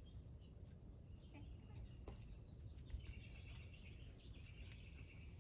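Quiet backyard ambience: a low background hum with faint, distant bird chirps, and a thin high chirping that holds steady from about halfway through.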